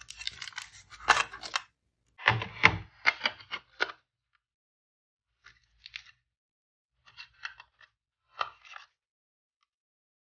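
Hands handling a laptop hard disk and a SATA SSD: two bursts of clicking and scraping in the first few seconds, then a few lighter clicks.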